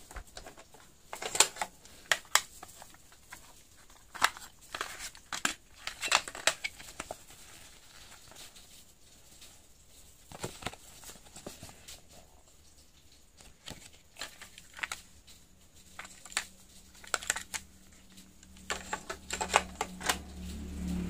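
Sharp clicks and clacks of plastic cassette cases being handled, opened and shut, with the light rustle of a paper cassette insert. Near the end a cassette is pushed into a Sony boombox's tape deck with more clicks, as a low hum builds underneath.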